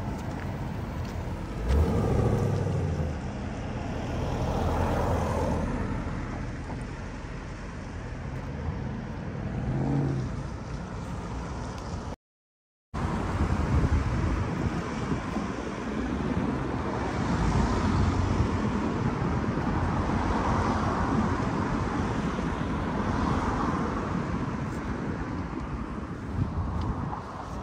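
Road traffic beside a street: cars driving past, rising and falling in level as each one passes. The sound cuts out completely for under a second about halfway through.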